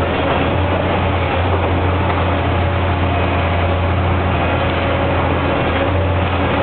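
High-reach demolition excavator's diesel engine running steadily, a constant low drone with no distinct impacts.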